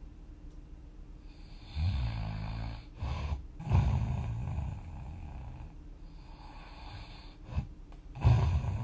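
Snoring: a loud, low snore about two seconds in, then a short one and a longer one that fades away, a brief snort, and another loud snore starting near the end.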